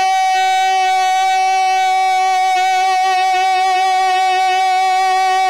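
A man's singing voice holding one long note at a steady pitch, with a slight waver, in unaccompanied naat singing amplified through a microphone and public-address system.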